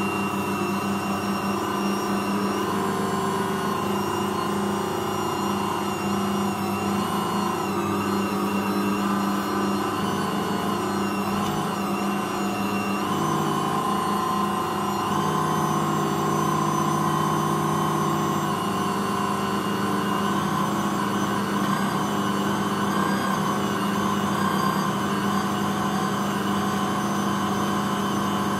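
Ankarsrum 6230 stand mixer running steadily, kneading a bread dough. Its motor hum holds several steady tones, which shift in pitch a few times, most clearly about halfway through.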